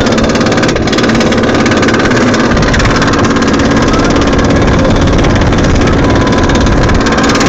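Amusement ride in motion: a loud, steady rumble that does not let up.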